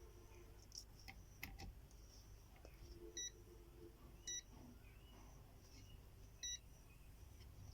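Three short electronic beeps, a second or two apart, from a digital multimeter's continuity tester as its probes touch points on a laptop motherboard while it is checked for shorts. A few faint clicks come before the beeps.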